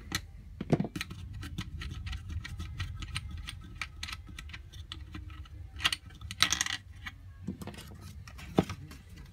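A screw being backed out of a 3D-printed plastic robot stomach plate with a small screwdriver and the plastic parts handled: a run of small clicks and light clinking rattles, loudest about six to seven seconds in.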